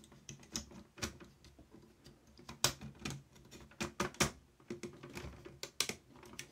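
Irregular clicks and light plastic knocks as a cassette deck's plastic cassette door assembly is handled and worked into place on the metal front fascia. The sharpest clicks fall about two and a half, four and six seconds in.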